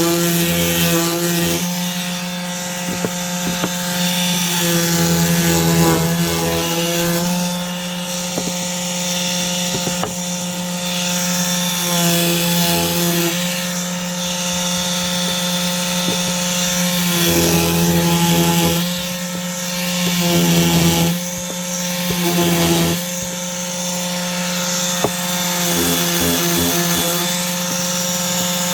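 Ryobi palm sander running with 220-grit paper on a rough-cut 2×4 block: a steady motor hum under the scratch of paper on wood. It grows louder and softer every few seconds as the sander is pressed and moved over the block.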